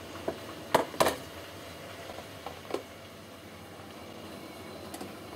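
Sharp plastic-and-metal clicks and knocks from a green Morphy Richards Accents Pyramid electric kettle being handled and its lid opened, the loudest pair about a second in and another pair near the three-second mark, over a steady low background noise.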